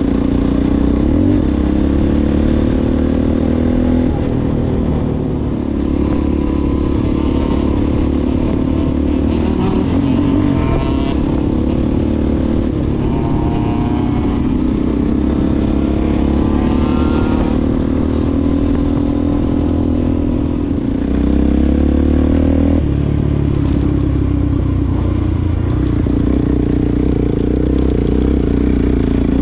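Off-road vehicle engine running under load, its revs rising and falling again and again. The low drone gets louder about two-thirds of the way through.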